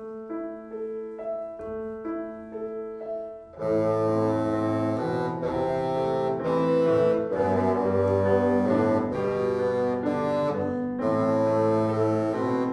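Grand piano playing a short introduction, joined about three and a half seconds in by a bassoon playing a melody over the piano accompaniment.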